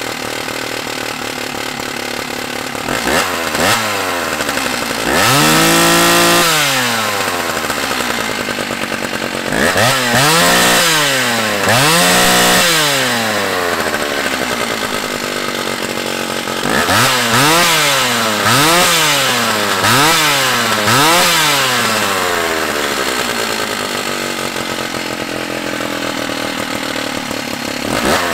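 Old Stihl 056AV 81cc two-stroke chainsaw, fitted with a replacement for its failed Bosch electronic ignition, running warm. It idles and is revved up from idle again and again, about nine times. One rev is held for a second or so near the start; the rest are quick blips. It settles back to a steady idle near the end.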